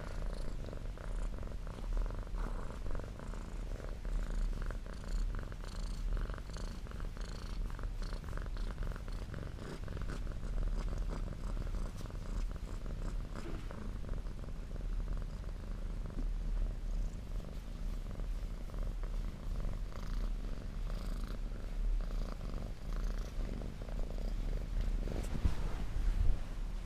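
Domestic cat purring close to the microphone, a steady, continuous purr.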